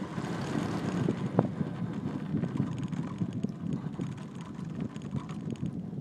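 Wind buffeting the microphone during a chairlift ride, over a low rumble. There is one sharp click about one and a half seconds in, and fast faint clicking from about two and a half seconds in.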